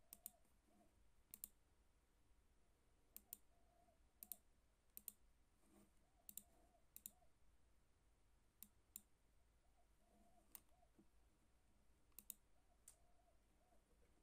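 Faint, sharp clicks of a computer pointer button, about a dozen, irregularly spaced and often in quick pairs.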